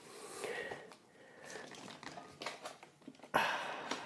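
Faint rustling and scraping of the PowerVision PowerEgg drone's smooth plastic shell against the foam lining of its hard case as it is worked loose by hand, with a louder short rush of noise about three and a half seconds in.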